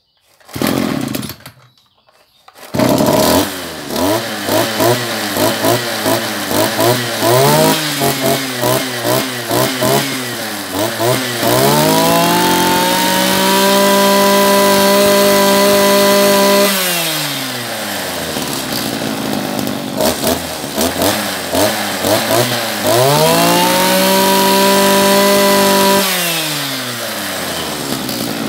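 Small two-stroke engine of a Maruyama brush cutter, just primed and choked, catching about three seconds in. It is revved in quick throttle blips, then held at high revs for several seconds and dropped back to idle. It is blipped and run up to high revs once more, then falls back to idle near the end.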